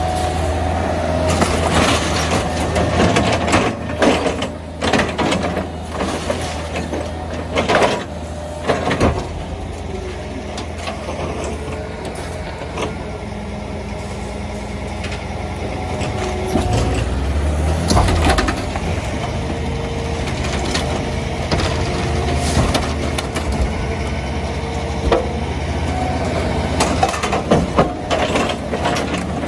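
Diesel engines of an Isuzu rear-loader garbage truck and a Toyota skid-steer loader running steadily while the loader's grab tips bulk household rubbish into the truck's rear hopper, with repeated crashes and clatters. These are heaviest in the first several seconds, again about halfway through and near the end. In between, a steady hydraulic whine of the truck's compactor runs under the engines.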